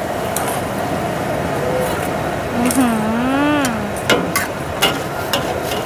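Two metal spatulas scraping and clanking irregularly against a steel wok as rice vermicelli is stir-fried, over a steady sizzle. A voice is heard briefly around the middle.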